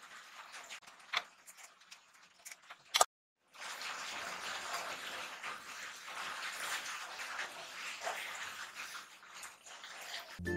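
Creamy pasta sauce simmering in a frying pan as fettuccine is stirred through it, with a few light clicks and one sharp knock about three seconds in.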